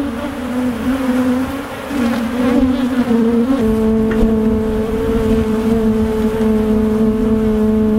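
Honey bees buzzing close to the microphone: a loud hum that wavers in pitch at first, then settles on one steady note about three and a half seconds in. The colony is mad, stirred up by the hive work.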